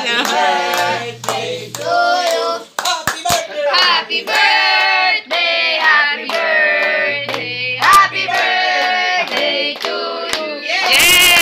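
Several people clapping their hands along with singing voices.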